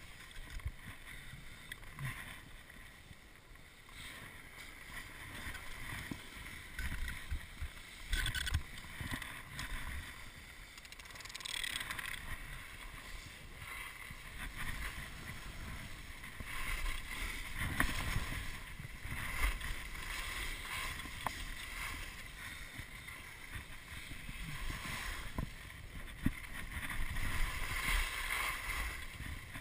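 Skis scraping and swishing over packed snow on a downhill run, the hiss swelling and easing with each turn.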